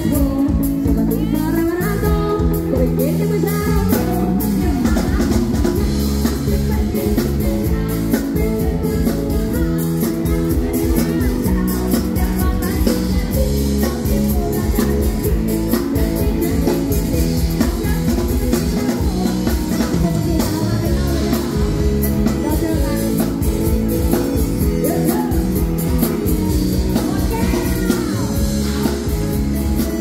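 Live band playing a rock-pop song: a woman sings lead over drum kit and electric guitar.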